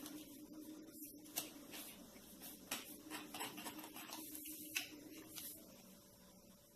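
Knife sawing through a chocolate-coated chocotone: faint, irregular scraping strokes of the blade through the set chocolate shell and cake, dying away after about five and a half seconds.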